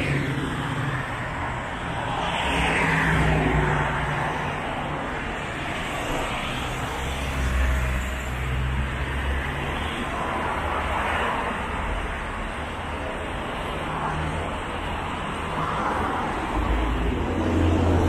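Steady road traffic on a multi-lane road, with several cars passing one after another, each swelling up and fading over a few seconds.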